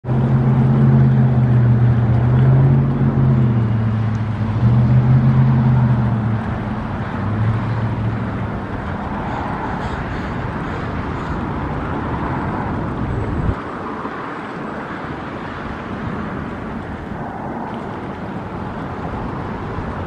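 A motor engine droning, loudest in the first six seconds and wavering in pitch before fading, over a steady rush of outdoor background noise. The low rumble cuts off suddenly about thirteen seconds in.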